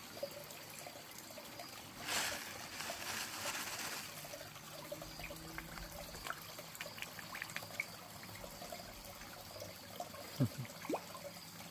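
Pond water trickling steadily, with a louder splashing stretch about two seconds in and a run of small pops and splashes at the surface as hungry fish feed.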